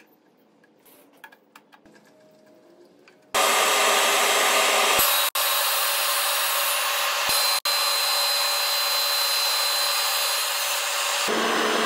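Laguna Supermax 25-50 drum sander running with its dust-collection hose attached, a loud, steady rushing machine noise that starts suddenly a few seconds in, breaks off twice for a moment, and stops near the end. Before it starts, a few light clicks of handling.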